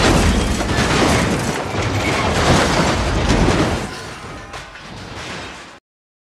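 Film battle sound effects: loud crashing and flying debris over a deep rumble, dropping away about four seconds in and cutting off to silence near the end.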